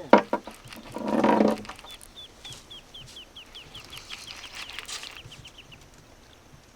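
A bird calling a rapid run of short, high, down-slurred notes, about four or five a second, for nearly four seconds. Just before it come a few sharp clicks and a loud rushing noise lasting about half a second.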